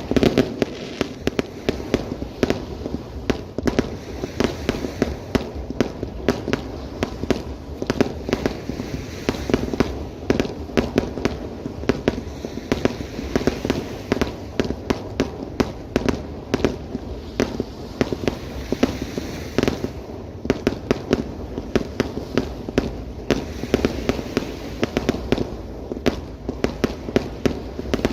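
Fireworks display: a dense, irregular barrage of shell bursts and bangs, several a second, over a continuous low rumble of explosions.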